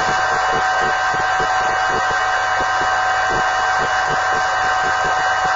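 Steady hiss with two constant whining tones and a fast, irregular low crackle: the background noise of a worn analogue soundtrack.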